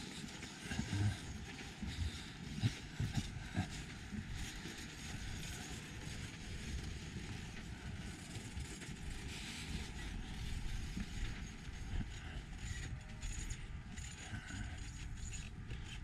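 Outdoor background noise on a walk: a steady low rumble, with irregular soft thumps in the first few seconds and faint thin high-pitched tones later on.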